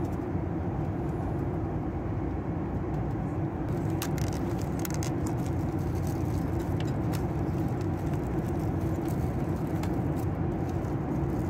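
Steady roar of a jet airliner's cabin in flight. From about four seconds in, the aluminium foil lid of an in-flight meal tray crinkles as it is peeled back.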